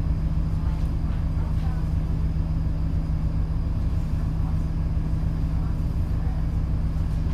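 Bus engine idling, heard from inside the bus: a steady low rumble with one constant hum.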